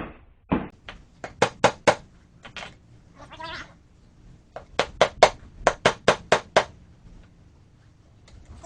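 Sharp metal knocks from a pry bar driven against a tractor tire's bead to break it loose from the rim. They come in two quick runs of about four a second, with a pause and a few single knocks between.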